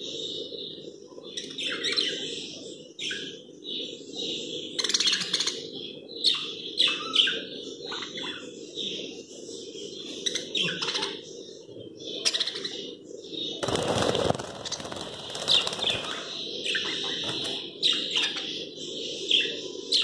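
A cage of budgerigars chirping and chattering continuously in quick, overlapping calls. There is a brief rustling burst about two-thirds of the way through, over a steady low hum.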